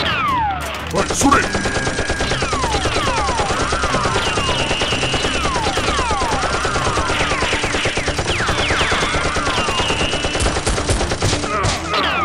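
Machine-gun fire sound effect: a rapid, unbroken stream of shots starting about a second in, overlaid with many falling whistles like passing bullets.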